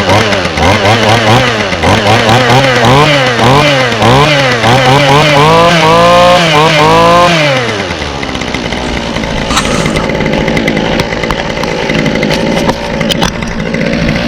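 Freshly started 2011 Toro string trimmer's 25cc two-stroke engine revved in a rapid series of throttle blips, each higher than the last, for about eight seconds, then dropping back to a steady idle.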